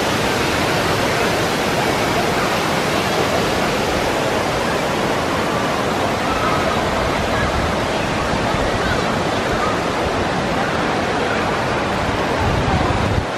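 Steady roar of water echoing through a huge indoor water park hall: wave pool and waterfalls churning, with faint voices of swimmers mixed in.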